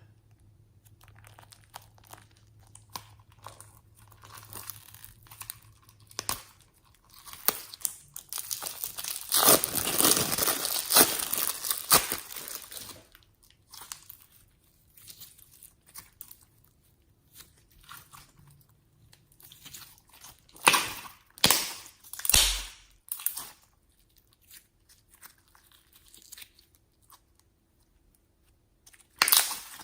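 Hand-handling of slime and makeup items being mixed together: scattered small clicks and crinkles, a dense stretch of crackling and crunching a third of the way in, then a few sharp, loud crunches in the second half.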